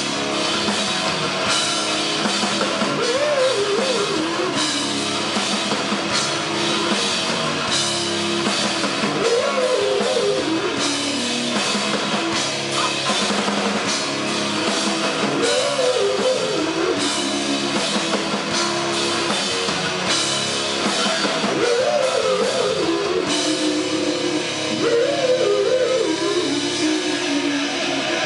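Live rock band playing loud and steady: electric guitar and drum kit, with a bending melodic line that comes back every few seconds.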